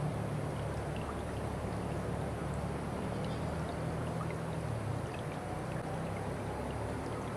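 Steady rush of flowing water, with faint short high ticks scattered through it.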